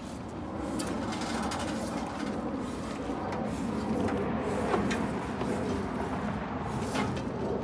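Pressure-washer hose being wound onto a trailer-mounted hose reel: a steady mechanical rattle with scattered clicks and knocks.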